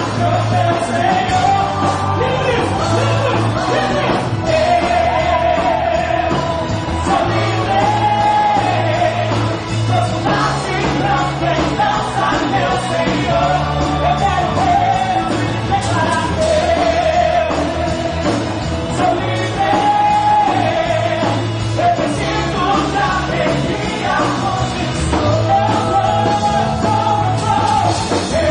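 Live worship music from a band playing a steady rock-style groove, with sung melody lines repeating in short phrases over the bass.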